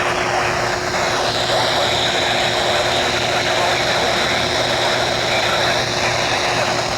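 Steady hiss of static from a radio picking up a weak weather-radio signal, with a steady low hum and a faint whistle that slowly dips and rises in pitch.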